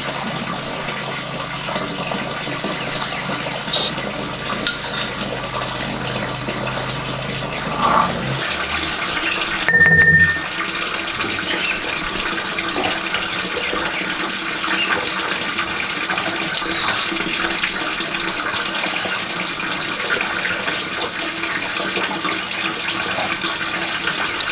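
Water running steadily, with a low hum underneath that stops about eight seconds in and a brief sharp clink about ten seconds in.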